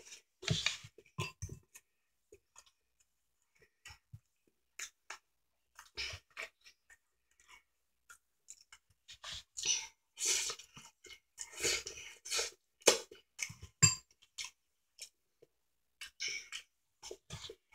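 A person eating ramen noodles and chicken: irregular chewing and lip-smacking mouth noises, with short gaps between them.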